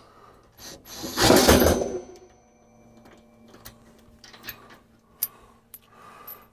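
Screwdriver work on a heat press: a louder clatter of handling about a second in, then scattered small metallic clicks and ticks as screws are worked.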